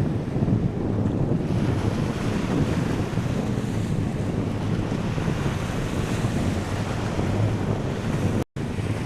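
Wind buffeting the microphone over sea surf washing on the beach, a steady noisy rush heaviest in the low end. It drops out to silence for a split second near the end.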